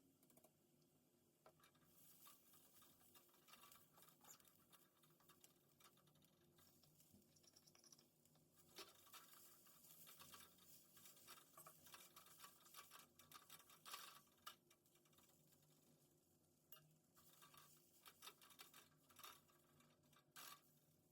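Near silence with faint scratching and light clicks and taps, busiest through the middle, as of hands and utensils at work.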